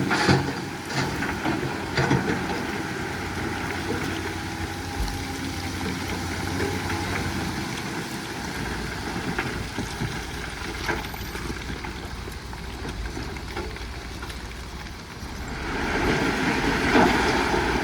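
Heavy diesel engine of earthmoving machinery running steadily, with a few knocks in the first couple of seconds. It gets louder about fifteen seconds in.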